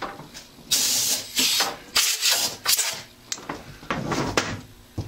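Four short hissing bursts, about half a second each, in the first three seconds, followed by a few light clicks and knocks.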